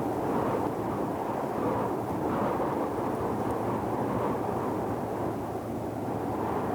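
Steady, deep rushing noise of an ocean white-noise sleep track, swelling and easing slightly every couple of seconds.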